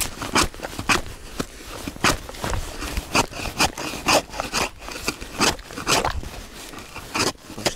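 Hand ice chisel (ice spud) chopping into lake ice, with sharp strikes about twice a second: chipping open a fishing hole that froze over in hard frost with a tip-up's line in it.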